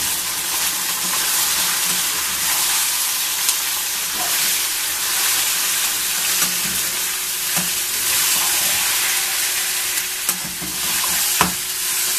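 Raw beef pieces sizzling in hot oil with fried onions in a frying pan, a steady hiss as the meat hits the oil, while it is stirred, with a few sharp clicks of the utensil against the pan.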